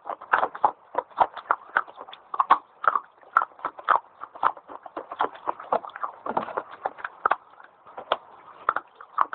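Fast, crunchy biting and chewing of dry white edible clay sticks: a quick, irregular run of sharp crunches, several a second.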